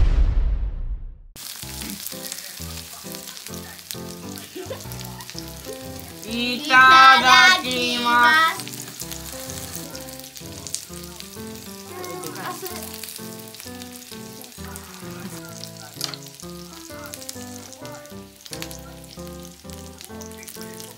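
Yakitori sizzling and frying on an electric hot plate, with light background music. About seven seconds in, a brief loud, high-pitched vocal sound rises over the sizzle.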